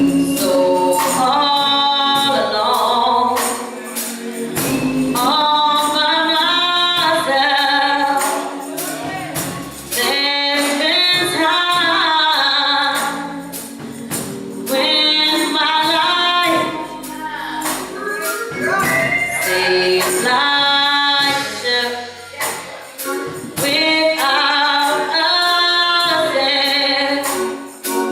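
Gospel choir singing with tambourine shaken and struck on the beat.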